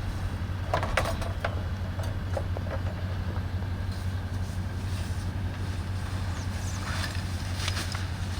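A vehicle engine idling steadily, with a few light clicks and knocks about a second in and again near the end.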